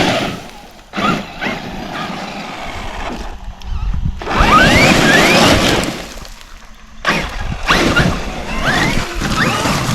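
Large Traxxas RC truck's electric motor whining up in pitch as it accelerates in repeated bursts, over tyre and ground noise. It backs off briefly about halfway through and again a few seconds later.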